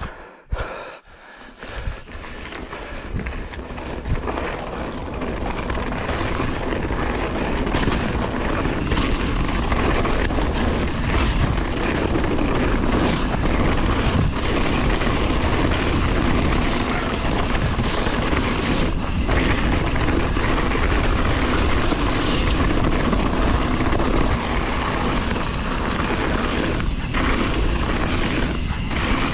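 Wind rushing over the camera microphone and mountain bike tyres rolling over a wet, stony trail, building up over the first few seconds as the bike gathers speed, then steady, with scattered clicks and knocks of the bike over stones.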